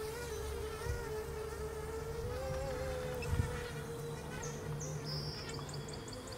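Electric motors and propellers of a radio-controlled ground-effect vehicle model heard at a distance as a steady buzz that wavers slightly in pitch, while the model runs across bumpy water.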